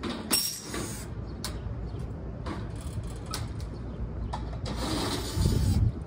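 Cordless drill-driver spinning screws out of a rooftop unit's sheet-metal access panel in several short runs, the longest and loudest near the end, over a steady low rumble.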